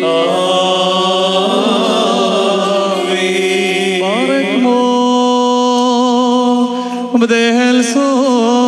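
Syriac Orthodox liturgical chant: sung voices holding long notes with slow glides in pitch. Several voices sing together in the first few seconds, then one line holds a steady note before the singing moves on near the end.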